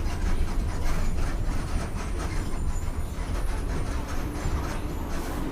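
Volkswagen Volksbus 17.230 OD bus under way: the diesel engine's steady low drone mixed with road noise and a continual clatter of body rattles.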